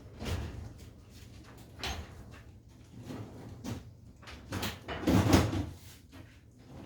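Clunks, knocks and scraping of tools and metal engine parts being handled, in irregular bursts, the loudest about five seconds in.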